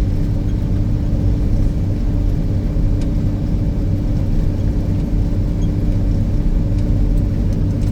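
Snowcat engine and tracks running steadily, heard inside the cab: an even low rumble with a constant hum.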